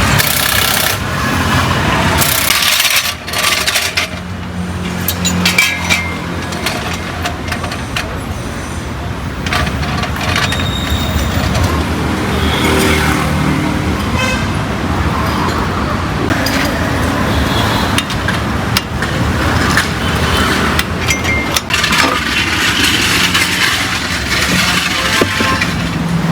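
Road traffic running by, with scattered clicks and knocks and faint voices.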